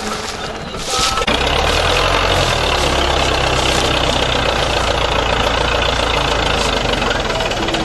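Diesel tractor engine running loud and steady. It gets louder about a second in, then holds.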